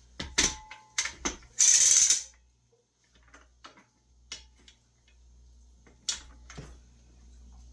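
Metal clamp being worked by hand: a run of sharp clicks and knocks, a short loud rasp about two seconds in, then scattered lighter clicks and a couple of knocks near the end.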